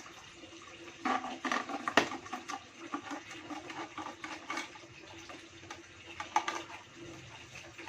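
Water splashing and sloshing as it is handled, with irregular clatters, busiest a second or two in and again near the end.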